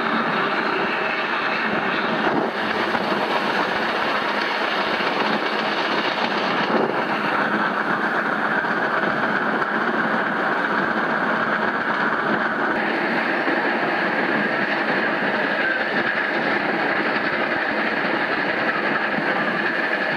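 Moving passenger train behind Union Pacific 3985, a 4-6-6-4 Challenger steam locomotive working ahead, heard from an open coach window: a loud, steady rush of locomotive exhaust, rolling wheels and passing air, with no distinct beat.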